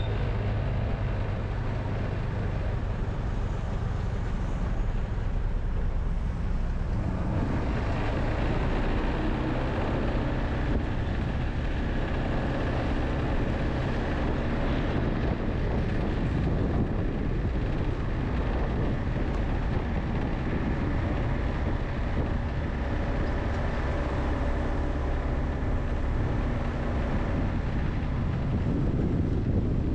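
Steady engine and road noise from a vehicle being driven along a city street, with a low hum whose pitch shifts a little every few seconds as the speed changes.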